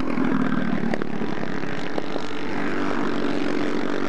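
Several four-stroke racing kart engines running together at speed, a steady overlapping drone from the passing pack.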